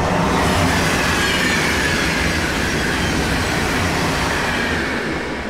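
A steady rushing noise that swells in and slowly fades, with a faint high tone gliding gradually downward in pitch.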